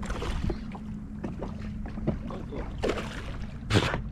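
A hooked fish splashing and thrashing at the water's surface, in short bursts, with a sharper splash near the end. Water lapping and a steady low hum run underneath.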